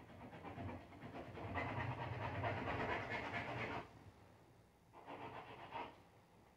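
Steak knife sawing back and forth through a rack of pork ribs on a cutting board: one long stretch of about three seconds, then a shorter one about five seconds in.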